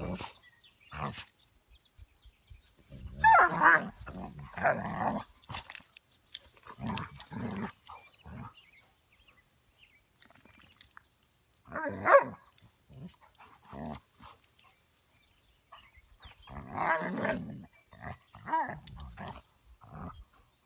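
Two Anatolian shepherd dogs, a puppy and an adult, play-fighting: growls and barks in scattered bursts, loudest about three seconds in and again around twelve and seventeen seconds, with quiet gaps between.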